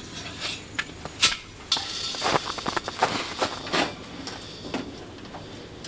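Irregular clicks, knocks and rattles with rustling as a propane cylinder, hose and fittings are handled while a portable propane heater is set up. The noise is busiest in the middle and dies away near the end.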